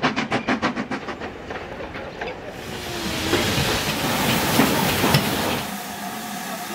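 Black Five steam locomotive No. 45212: rapid, even exhaust chuffs, about six a second, fade away over the first second and a half. A loud steady hiss of venting steam follows, with a few metallic clanks. Near the end it settles to a quieter, steadier sound.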